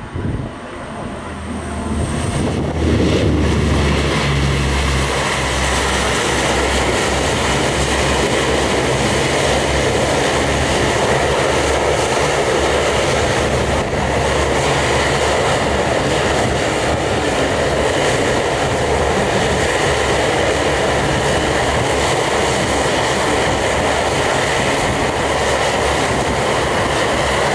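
Four Allison T56 turboprop engines of a C-130H Hercules running on the runway with their propellers turning. The sound swells over the first few seconds, then holds at a steady loud level with a steady whine over it.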